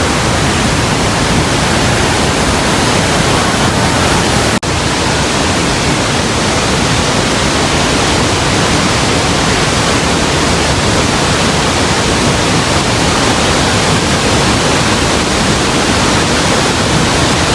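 Steady, loud rush of water from the Rhine Falls mixed with heavy rain, an even hiss with no breaks except a brief drop about four and a half seconds in.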